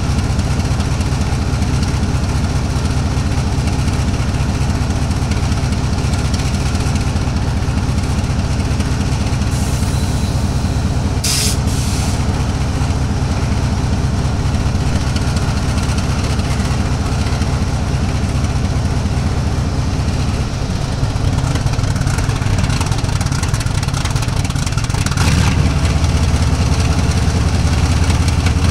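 Diesel-electric freight locomotive's engine running with a steady low rumble. A brief hiss of air comes about eleven seconds in, and the engine steps up in two stages, around twenty and twenty-five seconds in, as it is throttled up.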